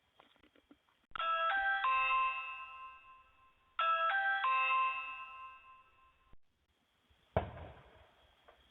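Video doorbell chime rung twice, each a quick run of three ringing notes that fades out over about two seconds. A single sharp thump near the end.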